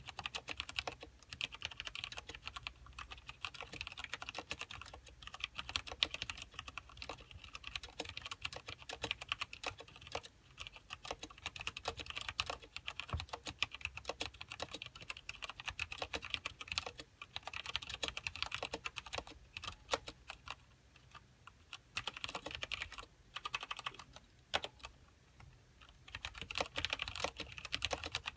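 Continuous typing on a mechanical keyboard with linear Cherry MX Black switches and thin ABS keycaps: a fast stream of key clacks with a couple of brief pauses.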